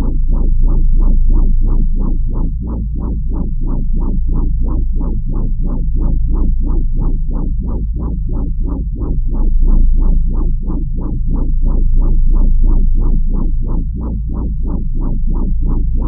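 Synthesized sci-fi sound effect: a loud, deep droning hum that pulses evenly about three times a second, like a wobbling bass.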